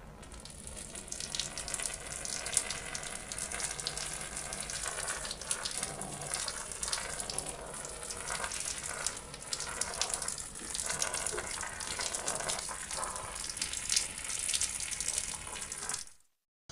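Steady gushing of running water, like a tap or fountain pouring, that swells over the first couple of seconds and cuts off suddenly near the end.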